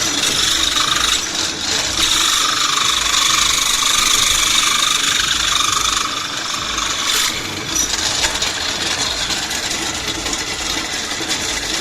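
Electric power tool running steadily with a whining hum, working on the metal hub parts; it eases to a lower, rougher running about seven seconds in.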